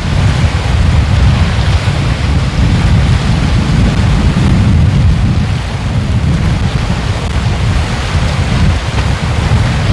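Ocean waves surging and washing on the shore: a loud, steady wash with a deep, continuous rumble underneath.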